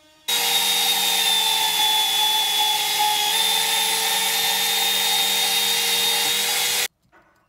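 Portable band saw running steadily while cutting a steel concrete stake, a motor whine over the rasp of the blade; it starts and stops abruptly.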